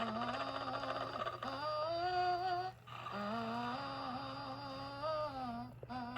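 Vintage animated Mr. and Mrs. Santa Claus figure's sound unit playing a recorded voice humming a tune, the notes gliding from one to the next, in phrases broken by short pauses about three seconds in and near the end, over a steady low hum.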